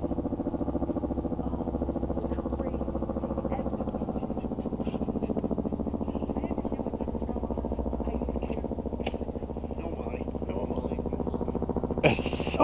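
A steady low mechanical hum with a fast, even pulse, like a small engine running. A short, loud burst of noise cuts in near the end.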